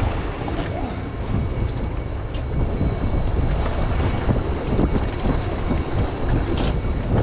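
Wind buffeting the microphone aboard a boat at sea, over a steady low rumble and rushing water, with a few faint clicks.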